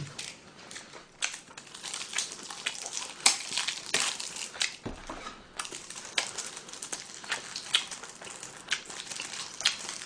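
Close-miked eating and drinking mouth sounds: irregular small clicks and crackles, several a second, as someone chews and swallows.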